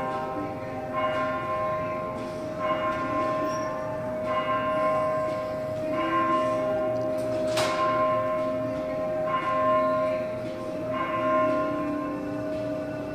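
Bells ringing a slow run of notes, a new stroke roughly every one and a half seconds, each note ringing on over a long sustained tone and echoing in a large atrium. A single sharp click cuts through about halfway.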